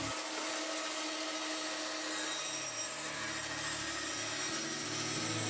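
Record Power BS250 bandsaw running steadily, its blade ripping a thin strip off a wooden board fed against the fence.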